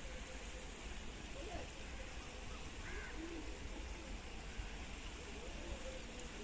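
Faint outdoor background: a steady low rumble and hiss, with a few faint short calls that come and go.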